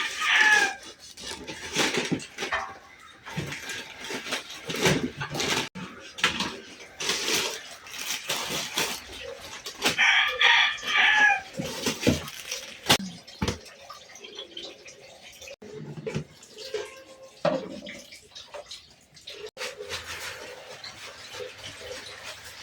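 A rooster crowing twice, once at the start and again about ten seconds in, with household clattering and splashing water in between.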